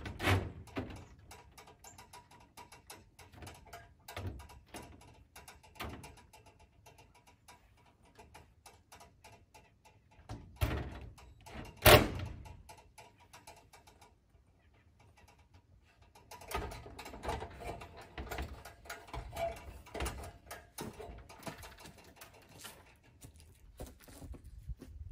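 Scattered clicks and knocks of work on an aluminium extension ladder against corrugated steel barn siding, with one sharp bang about halfway through. Near the end comes a longer run of clatter and steps as the ladder is climbed down.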